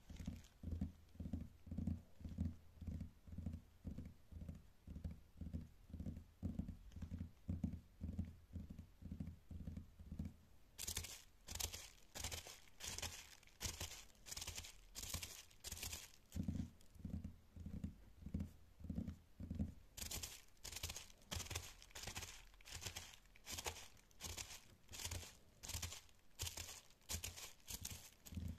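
Fingertips tapping rhythmically on bubble wrap, about two taps a second. The taps are dull, soft thuds for the first ten seconds and again for a few seconds past the middle. In between, and through most of the second half, they turn crisp and crinkly.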